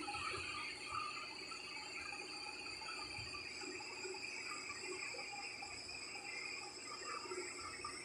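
Lathe running with a cut under way, giving a steady high-pitched whine over a low rumble.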